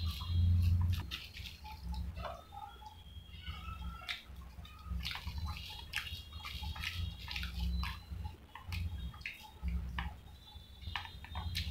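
Close-up wet eating sounds: chewing and lip smacking on soft medu vada, with fingers squishing and tearing the vada on the plate. Irregular sharp clicks and smacks run throughout.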